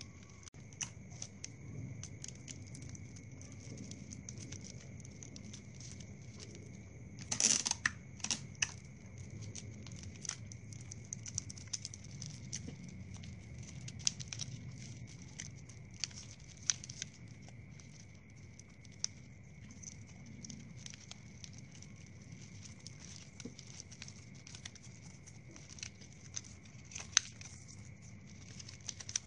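Plastic drinking straws rustling, crinkling and clicking as they are handled and bent together, with a louder burst of crinkling about seven seconds in.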